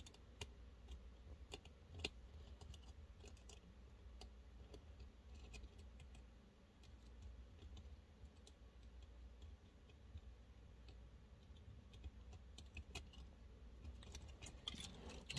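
Faint, irregular light clicks and taps of a screwdriver and small screws and plastic parts being handled while a toy tank is taken apart, over a low steady hum.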